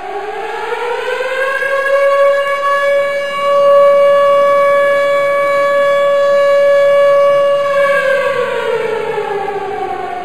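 An air-raid-style siren winds up in pitch over about two seconds, holds one steady tone, then winds down from near the end.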